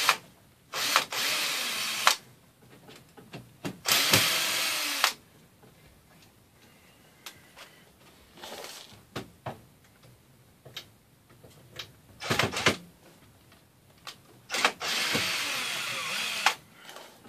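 Cordless drill driving screws into cedar table boards, in four runs lasting from half a second to two seconds, with small clicks and knocks between them.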